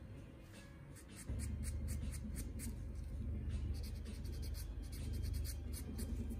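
Nail buffer block rubbed back and forth across a toenail in quick scratchy strokes, about four or five a second. A low steady hum comes in about a second in.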